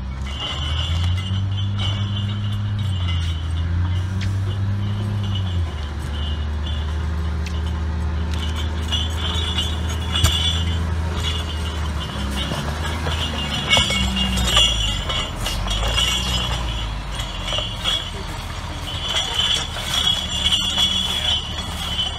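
Log Champ LC550 grapple yarder's diesel engine running under load, its pitch stepping up and down as the winches haul the grapple carriage and log in. A few sharp clanks and knocks come from the grapple and logs.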